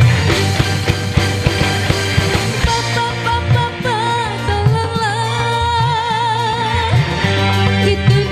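Live band playing a dangdut-style song: drums and bass keep a steady beat under guitar and keyboard, with a woman singing.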